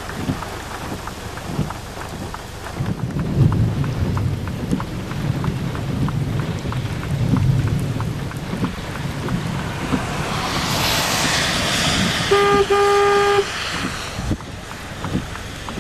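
Storm wind and rain on the microphone, a continuous rumbling noise with a louder hissing gust about ten seconds in. Near the end a steady pitched tone sounds twice in quick succession, about a second in all.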